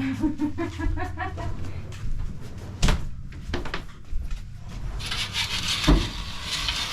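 A few sharp wooden knocks, then a scraping rub for about the last two seconds, with a loud knock in the middle of it: the sound of wooden fittings in an old house being handled and slid. Brief talk is heard at the start.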